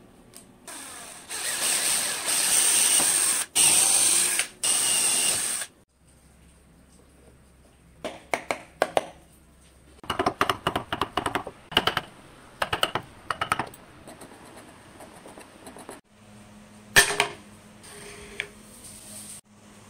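Hand carving on cypress wood. First several seconds of loud, rough scraping or rasping, then a run of rapid small clicks and scrapes from a steel tool working the wood, and near the end a single sharp knock of wood on the bench.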